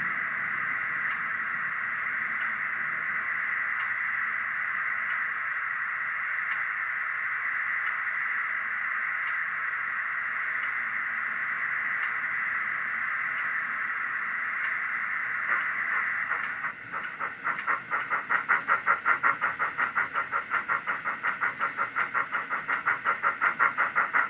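Sound decoder of a Bachmann GWR 94XX pannier tank model playing steam locomotive sounds through its small onboard speaker. A steady steam hiss runs for about sixteen seconds, then a regular beat of exhaust chuffs starts up and grows louder, sounding like it is working harder under the heavy-load setting.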